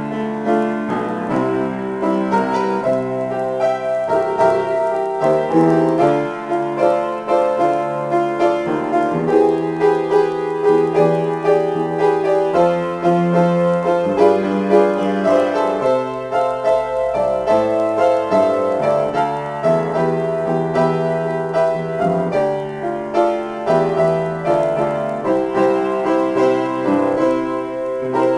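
Solo grand piano improvisation: a continuous flow of chords and melody notes.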